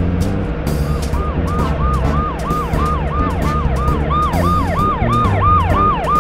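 Police car siren, a fast rising-and-falling yelp about three times a second that grows louder, over background music with bass and drums.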